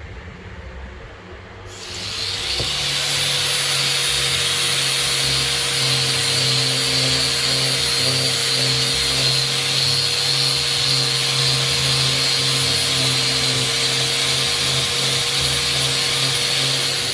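Angle grinder spinning up about two seconds in, running steadily at one speed, then switched off near the end.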